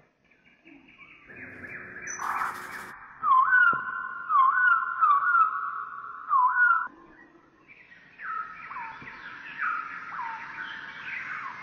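Bird-like chirping and whistling: high tones that swoop up and down in quick repeated phrases, starting a little over a second in, briefly dropping out around seven seconds, then returning.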